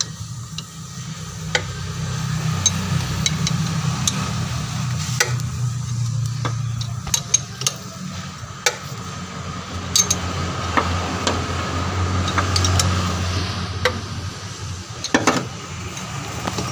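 Scattered sharp metallic clicks and clinks of a socket wrench and hand tools on the bolt of a car's rear engine mount, at irregular intervals, over a steady low hum.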